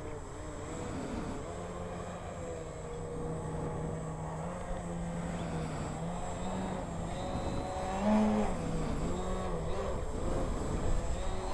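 Radio-controlled aerobatic airplane's motor and propeller droning as it hangs nose-up in a hover. The pitch rises and falls with the throttle, with a louder, higher surge about eight seconds in.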